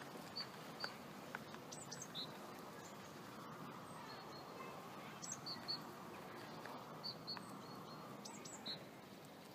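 Small birds chirping: short high chirps, often in quick pairs, scattered over a steady low background hum.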